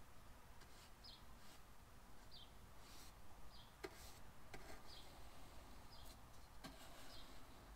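Near silence with a faint short chirp about once a second, each sliding down in pitch, like a small bird calling, and a few faint ticks.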